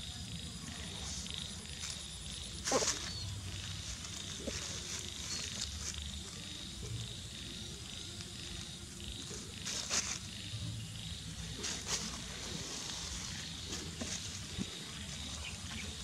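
Steady low rumble and high hiss of the open air, with a few short rustles and clicks in the grass as a frog is touched and handled.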